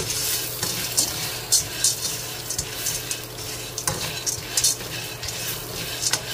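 Small dry pasta and sliced onion frying and sizzling in a large metal pan, stirred with a slotted spatula in repeated scraping, rattling strokes as the pasta toasts for soup.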